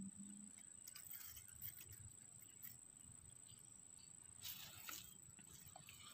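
Near silence: faint outdoor room tone with a steady faint high whine, a few small clicks, and a brief rustle about four and a half seconds in.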